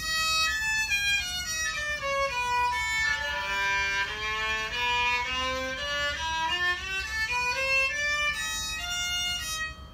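Old Japanese electric violin played unplugged, bowing a scale of separate notes that steps down to its lowest notes about halfway through and climbs back up.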